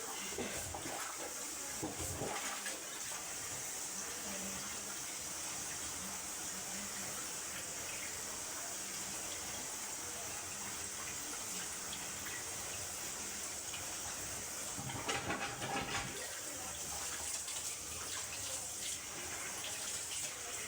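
Water running steadily through a drain being cleared of a blockage, with a few knocks near the start and a brief louder clatter about three-quarters of the way through.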